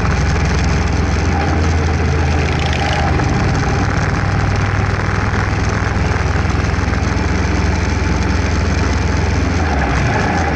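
Kawasaki EN500 Vulcan's parallel-twin engine running at a steady cruising speed, heard from on the moving bike, with wind noise rushing over the microphone.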